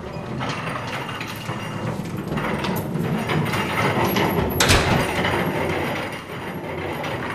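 Wheeled janitor's trash bin rolling and rattling over a hard hallway floor, with a sharp knock about four and a half seconds in.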